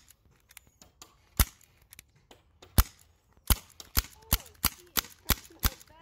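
Airsoft gun shots: two single sharp snaps spaced over a second apart, then a quicker run of about three shots a second.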